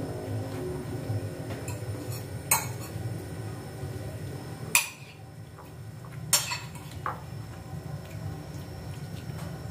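Metal spoons clinking and scraping on ceramic plates while eating, with a few sharp clinks, the loudest four spread through the middle, over a low steady hum.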